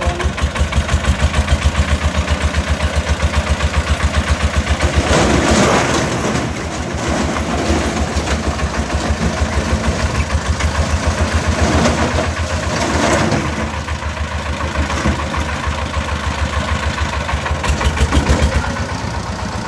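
A công nông three-wheeled farm truck's single-cylinder diesel engine chugging steadily while its dump bed tips, with bricks clattering and crashing out of the bed in bursts about five seconds in, around twelve seconds in, and near the end.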